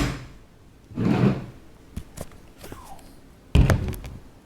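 A series of thumps and knocks: a sharp loud thump at the start, a softer thud about a second in, a couple of light clicks around two seconds, and another sharp loud thump about three and a half seconds in.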